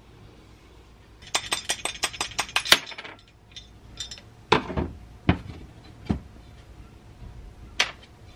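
Metal electric-motor parts handled on a workbench: a quick rattle of clinks for about two seconds, then several separate heavier knocks as parts such as the end bell are set down on the bench.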